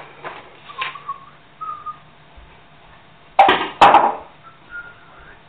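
Kitchen clatter while hot jam is ladled into jars: two sharp, loud clinks about half a second apart past the middle, with a few soft scrapes earlier. Short, faint whistled notes come and go throughout.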